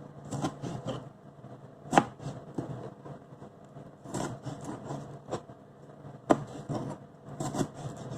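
Kitchen work: irregular knocks and clicks of utensils against a board and cookware, some in quick runs, with two sharper knocks about two seconds in and near six seconds, over a low steady hum.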